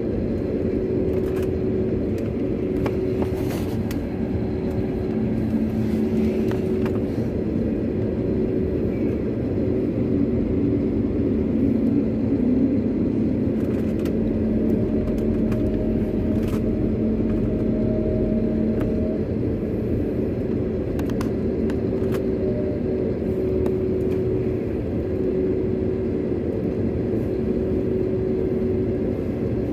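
Cabin noise of an Airbus A320-family airliner taxiing: its jet engines hum steadily at low power with a couple of held tones, and faint clicks come now and then.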